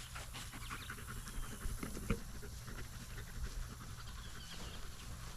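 Belgian Malinois search dog panting while working a search.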